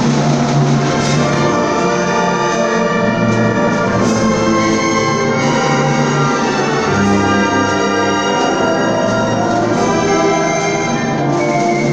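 Symphony orchestra playing a loud, sustained passage with the brass section to the fore.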